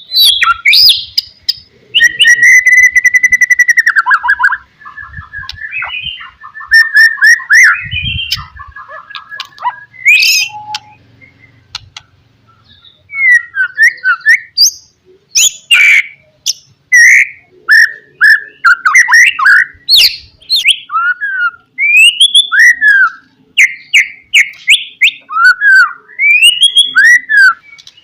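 White-rumped shama (murai batu) singing a loud, varied song of whistled phrases: a long rapid trill about two seconds in, then quick rising and falling notes broken by short pauses. A low thump about eight seconds in.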